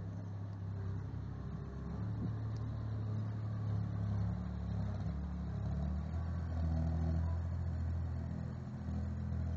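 Avant 630 compact loader's diesel engine running, its note shifting down and up a few times as the throttle changes.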